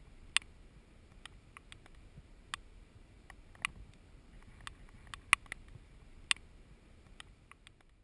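Quiet outdoor ambience: a low wind rumble with irregular sharp ticks, about one a second, a few of them louder.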